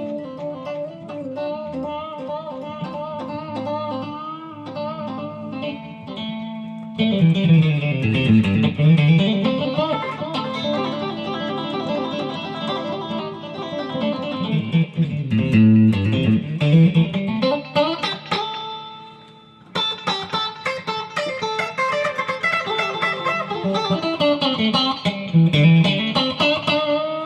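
Custom-built Stratocaster-style electric guitar played through an amp. It starts with single notes with vibrato, gets louder and fuller about seven seconds in, drops away briefly past the middle, then the playing picks up again.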